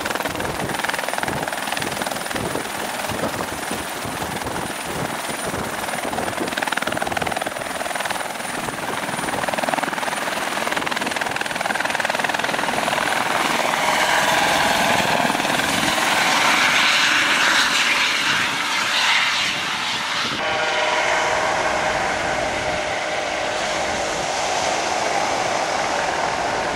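Eurocopter EC120 light helicopter running: turbine whine and rotor noise as it lifts off and hovers low, growing louder partway through. After an abrupt cut about two-thirds of the way in, it is heard flying past.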